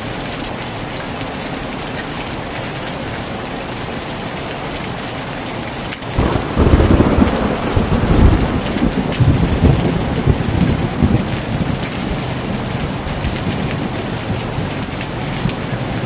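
Heavy rain falling steadily on a tin roof. About six seconds in, a loud thunderclap breaks and rolls on as a deep rumble for several seconds, then fades back under the rain.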